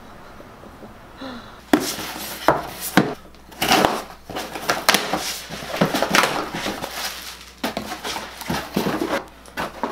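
Cardboard shipping box being cut open and unpacked by hand: the tape is slit and the flaps are pulled open, making a busy run of sharp scrapes, taps and cardboard rustling that starts about two seconds in.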